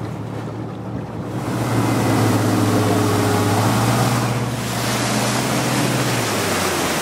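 Outboard motor driving a bass boat at speed: a steady engine drone that strengthens after about a second and a half and eases near the end, under wind and the rush of the wake.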